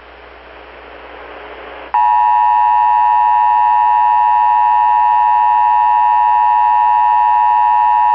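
Faint hiss rising for about two seconds, then a loud, steady Emergency Alert System attention signal starts: the two-tone alarm, two close pitches sounded together without a break.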